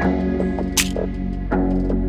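Background music with a steady beat: sustained chords over a deep bass, with a sharp hit about every three quarters of a second.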